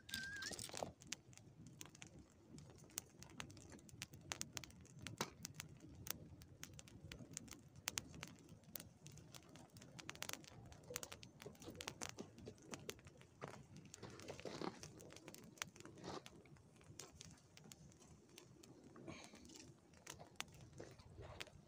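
Small brushwood fire crackling, with sharp irregular pops and the occasional rustle of dry twigs being handled and added.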